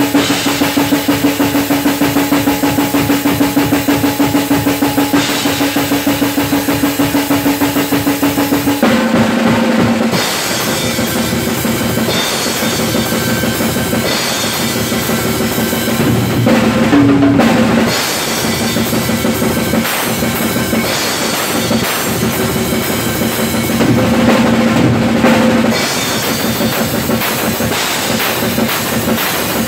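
Acoustic drum kit played hard and fast, bass drum and snare driving a rapid even pulse for about the first nine seconds, then changing to a different, busier pattern.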